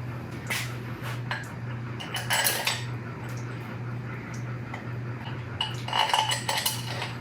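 Metal tools and engine parts clinking and clattering as they are handled on the workbench: a run of short, sharp, lightly ringing clinks in small clusters, over a steady low hum.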